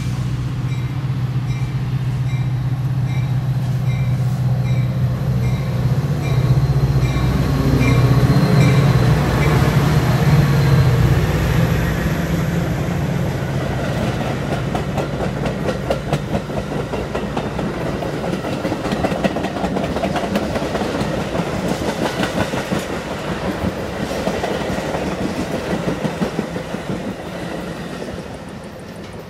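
Metra diesel commuter train passing close by: the locomotive's engine running loudest in the first ten seconds or so while a bell rings about twice a second, then the bilevel gallery cars' wheels clicking steadily over the rail joints, fading near the end.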